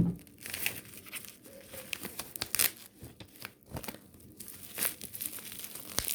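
A parcel's packaging being torn open and crinkled by hand, in short, irregular rustles and rips.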